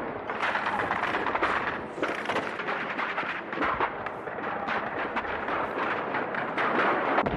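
Battle gunfire and shellfire: a dense, unbroken crackle of shots and blasts.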